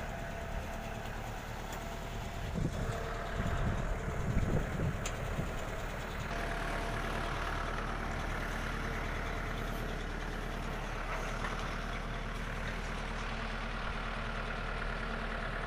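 Compact tractor's diesel engine running steadily while it lowers a boat on its trolley down the slipway, with louder low rumbling about three to five seconds in.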